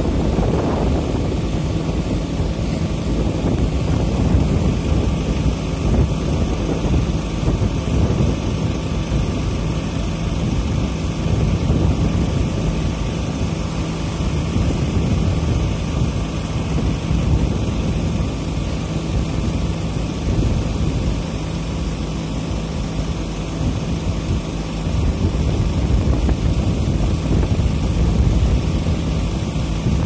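Steady road-traffic noise of car engines running and cars driving past, over a constant low engine hum.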